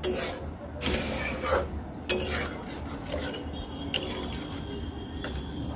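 Metal spatula stirring a thick mustard gravy in a metal kadai, scraping through the wet gravy with several sharp clinks of metal against the pan.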